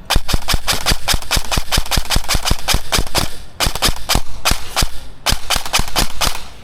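Airsoft gun firing on full auto, a rapid string of sharp cracks at about eight shots a second, broken into three bursts, as the player shoots out his last magazine until it runs empty.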